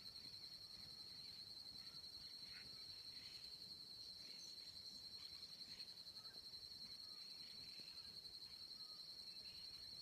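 Faint evening nature chorus: a steady high-pitched insect trill throughout, with scattered short bird chirps and calls over it.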